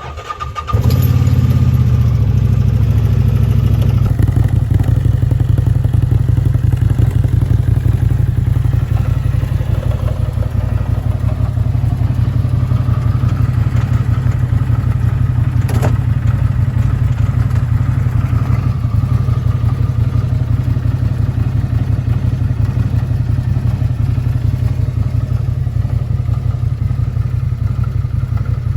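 CF Moto 800 side-by-side's V-twin engine starting almost at once and running steadily, a little faster for the first few seconds before settling. A single sharp click about halfway through.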